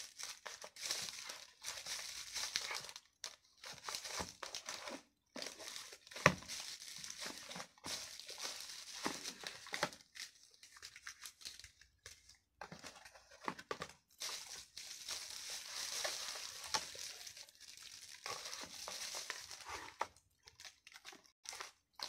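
Plastic packaging crinkling and rustling against a cardboard box as accessories are handled and pulled out of a new camera's box, in irregular spurts with short pauses. A sharp knock stands out about six seconds in.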